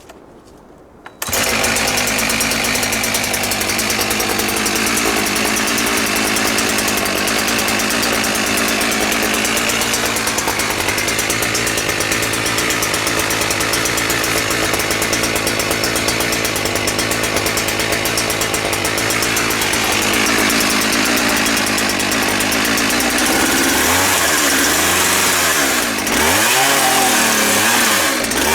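Husqvarna 365 two-stroke chainsaw on an Alaskan-style chainsaw mill running at high revs as it mills a log. It comes in suddenly about a second in and holds a steady pitch. Near the end the revs waver up and down.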